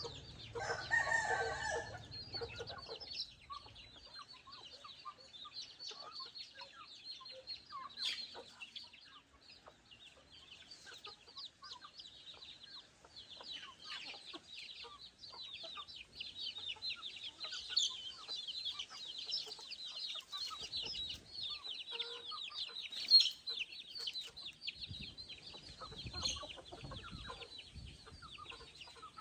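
Backyard chickens clucking, with a rooster crowing for about two seconds near the start, over a constant high-pitched chirring. One sharp click comes later on.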